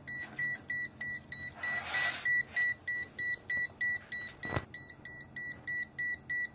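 5.25-inch five-channel LCD touchscreen fan controller beeping its alarm without pause: short high-pitched beeps on one tone, about three a second. The owner suspects the alarm is caused by fans 1 and 2 being four-wire fans. A brief rustle of handling comes about two seconds in, and a sharp knock at about four and a half seconds.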